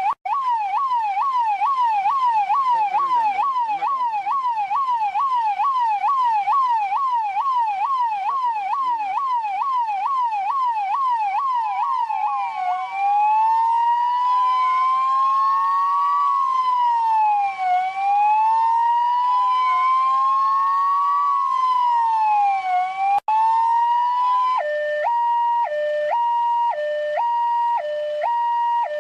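Electronic police siren cycling through its modes: a fast yelp sweeping up and down about twice a second, changing a little before halfway to a slower wail that rises and falls, then near the end to a two-tone hi-lo, alternating between a low and a high note about every half second.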